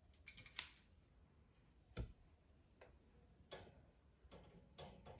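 Faint, irregular plastic clicks and taps as an electric fan's front cage is fitted back onto the fan. The sharpest click comes about two seconds in.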